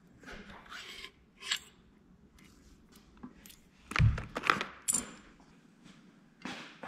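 Metal tools and parts clinking, rattling and knocking as they are handled on a workbench, with the heaviest knock about four seconds in and a sharp clink just before five seconds.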